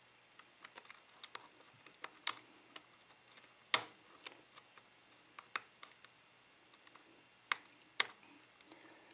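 Steel lock pick and tension wrench clicking against the pins and keyway of a CES Euro cylinder lock as it is picked: irregular small clicks and ticks, the loudest about two and a quarter and three and three-quarter seconds in.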